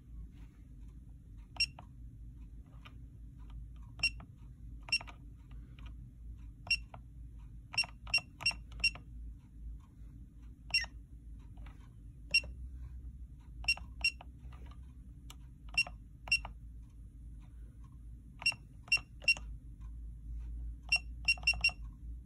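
Pax S80 card terminal's keypad beeping at each key press: about two dozen short, identical high beeps, some single and some in quick runs of three or four, as the date and time are keyed in. A faint steady low hum lies underneath.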